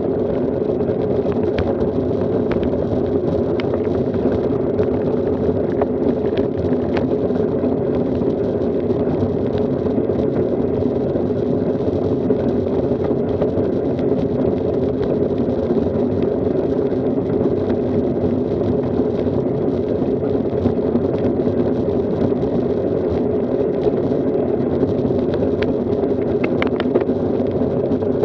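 Steady wind buffeting and tyre-on-asphalt road noise picked up by a camera mounted on a moving road bicycle, with a few faint clicks near the end.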